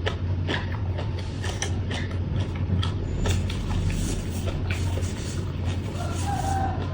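Close-up chewing and crunching of food: irregular crisp clicks and crackles from the mouth, over a steady low hum.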